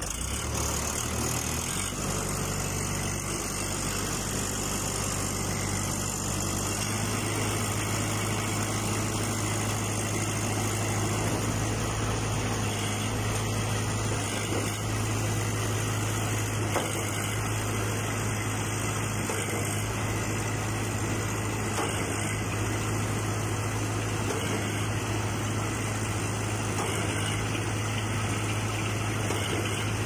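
Trailer-mounted concrete mixer pump running steadily, a low machine hum that steps up in strength about a second in and again about seven seconds in.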